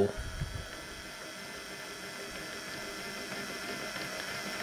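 Small 24 V DC brushed gear motor and its reduction gearbox running steadily under a speed controller, turning the compound-slide feed screw of a Warco WM180 lathe at a constant rate: an even whine.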